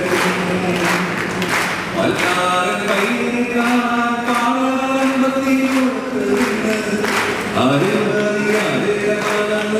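A man singing a slow Malayalam song unaccompanied into a microphone, holding long notes and sliding between them, with a soft steady beat about twice a second under his voice.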